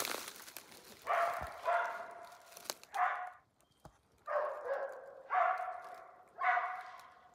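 West Siberian Laika hunting dogs barking at a black bear they have treed: six barks about a second apart, each held at a steady pitch.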